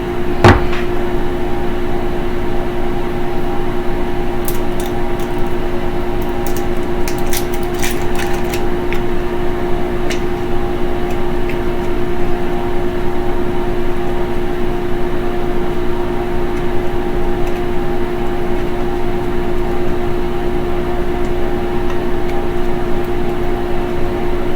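Steady hum of a running kitchen appliance or fan: one constant tone with a noisy rush beneath it, and a few light clicks and taps in the first eight seconds or so.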